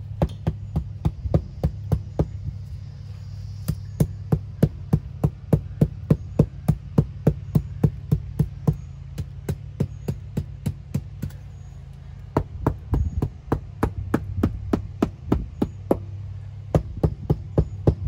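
Hammer tapping around the wooden form boards of a freshly poured concrete pad, about three taps a second with a few short pauses, to settle the wet concrete down into the form. A steady low hum runs underneath.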